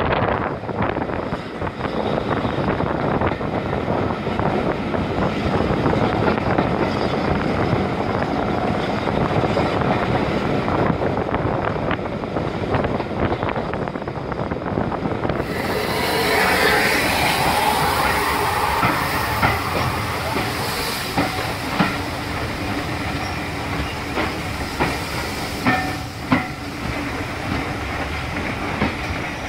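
Train running on the rails, with wheels clicking over rail joints. About halfway the sound abruptly turns brighter and sharper, and short clicks come at uneven intervals through the second half.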